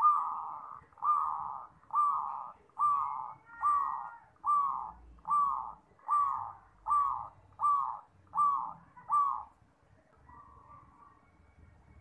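A zebra dove giving a series of about twelve short cooing notes, each falling in pitch, a little faster than one a second. The first note is the loudest, and the series stops a couple of seconds before the end.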